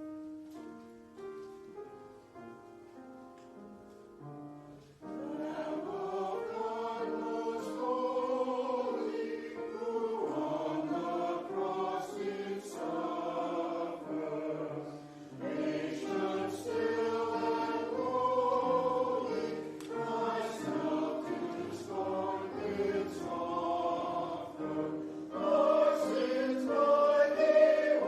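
Music: a short instrumental introduction of held notes, then a choir comes in about five seconds in and sings in phrases a few seconds long.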